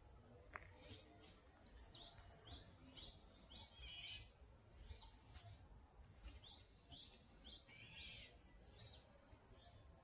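Faint forest birdsong: runs of short, high, falling notes repeated several times, over a steady high-pitched insect drone.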